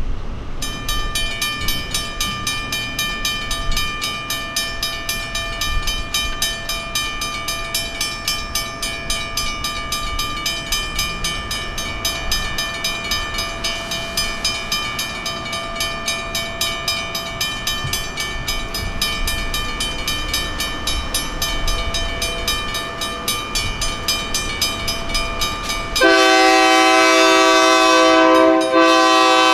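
Railroad crossing's WRRS mechanical bells start ringing about half a second in, a steady rapid clanging as the crossing activates. About 26 seconds in the approaching locomotive's air horn sounds, much louder, over the bells.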